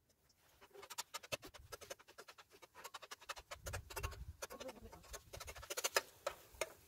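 Fat crackling and spitting in a frying pan on a camping gas stove, a dense run of fine crackles that starts about half a second in and builds. Low rumbling bumps come in about halfway through.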